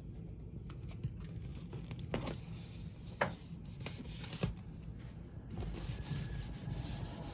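Rubbing and scraping of hands handling and pressing a peel-and-stick Smart Tiles backsplash tile onto the wall, with a few short, sharp rustles.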